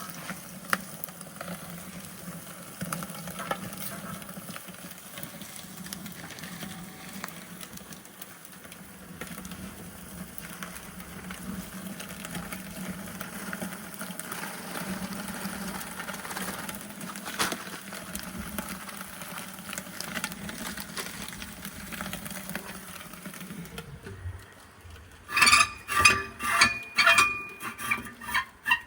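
Food sizzling steadily, with scattered light clicks. Near the end comes a run of loud, short ringing strokes, about two a second.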